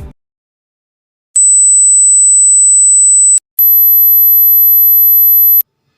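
Two pure test tones from a high-frequency hearing test, each about two seconds long with a short gap between. The first is high-pitched and the second is higher still. Each is a steady single pitch that starts and stops abruptly.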